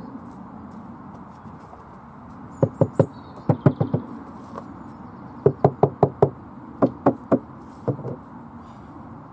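Hammer blows on timber, about sixteen sharp knocks in quick runs of three to five, with short pauses between the runs.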